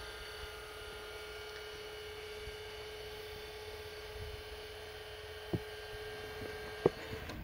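Electric drive of railway level-crossing barriers humming steadily as the booms lower, with two sharp knocks near the end and the hum cutting off suddenly as the booms come down.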